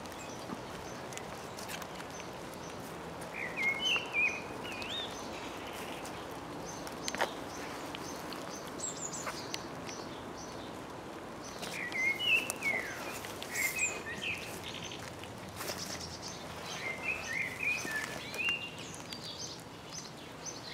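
Common blackbird singing short warbling phrases every few seconds, over a steady hiss of light rain.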